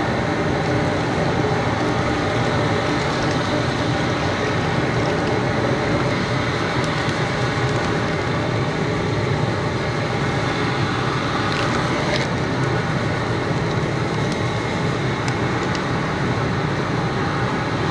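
Four propane jet burners of a 160,000 BTU, 150-quart Loco Cookers crawfish boiler running at full flame under the pot, a steady low rumble that does not let up, heating the seasoned water toward a boil.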